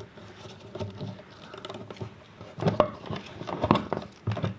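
Rustling and irregular light clicks of Romex (NM) electrical cable being handled as its outer jacket is pulled off the insulated wires. The clicks come thicker in the second half.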